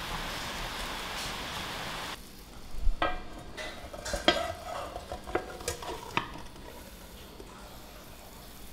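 Shredded potatoes sizzling in a frying pan, then after about two seconds the sizzle stops and the pan is lifted off the gas stove's grate with a series of sharp metal clanks and knocks, some briefly ringing.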